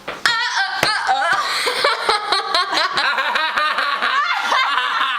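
Girls laughing and giggling in high-pitched bursts, with more than one voice overlapping in the second half.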